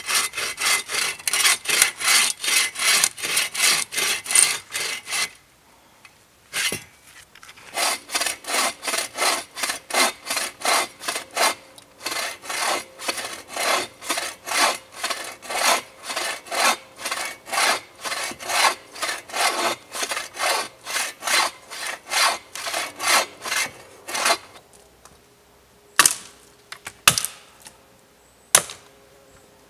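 Hand bow saw cutting through a dead fallen branch in quick, even push-pull strokes, each one a dry rasp of teeth through wood. The strokes break off briefly about a fifth of the way in, then resume and stop a few seconds before the end. A few sharp separate knocks follow.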